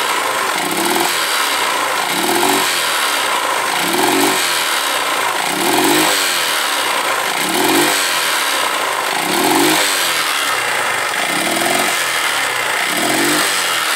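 Honda CG Titan 150 single-cylinder four-stroke engine revved in about eight short throttle blips, each rise in pitch falling straight back, over a steady idle. It stumbles and won't rev out cleanly on acceleration, a misfire, with a top-end rattle that the mechanic takes for a cam chain and piston skirt slap.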